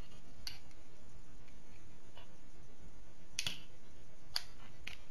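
Small sharp clicks of a screwdriver tip and plastic parts on the plastic housing of a wall clock movement being prised apart, about five in all, the loudest about three and a half seconds in, over a steady low hiss.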